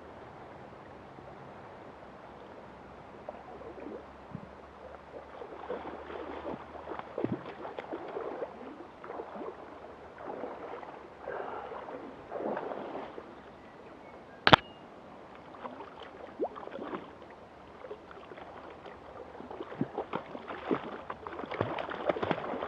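A hooked trout splashing and thrashing in shallow water at the river's edge as it is brought to the bank, with irregular splashes that grow busiest near the end, over the steady flow of the river. A single sharp knock about halfway through is the loudest sound.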